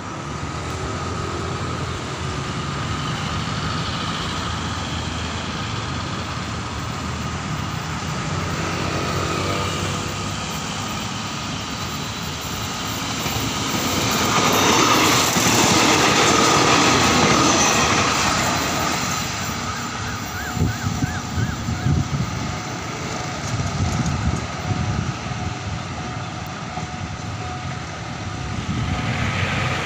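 A State Railway of Thailand diesel railcar approaching and passing close by. Its engine and wheel noise build to a peak about halfway through, then a run of sharp wheel clacks follows as the cars roll past.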